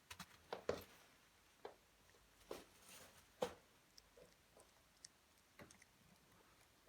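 Faint, scattered wet clicks and smacks, about seven of them, as a Persian mother cat licks and chews at her newborn kitten.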